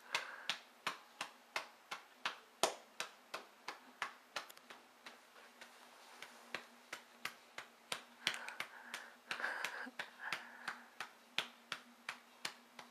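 A hand patting a baby's back to bring up a burp, in an even rhythm of about three light pats a second, softer for a couple of seconds near the middle.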